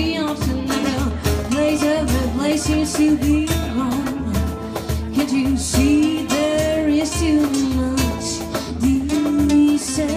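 Live acoustic band: a woman sings a melody through a microphone and PA over strummed acoustic guitars, with a steady low beat about twice a second underneath.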